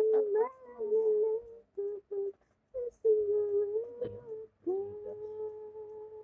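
A woman humming a slow tune without words: short phrases at first, then two long held notes near the end.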